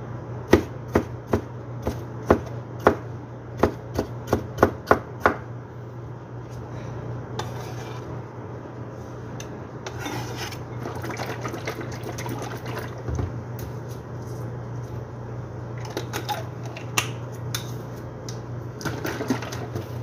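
A large kitchen knife chopping tomato on a plastic cutting board, about a dozen sharp knocks in the first five seconds. Then the knife scrapes the diced pieces off the tilted board into a bowl, with a few more knocks and clatters near the end, over a steady low hum.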